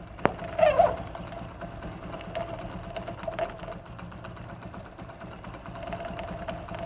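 Hero Honda Splendor Plus single-cylinder four-stroke engine idling with a steady run of clicking and rattling, with one sharper click about a quarter second in. The mechanic traces the rattle to the magneto side of the engine rather than the clutch side.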